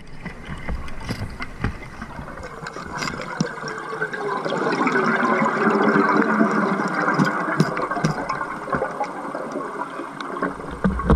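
Underwater sound heard through the camera housing: a diver's exhaust bubbles streaming and gurgling, swelling a few seconds in, with scattered clicks and knocks of diving gear.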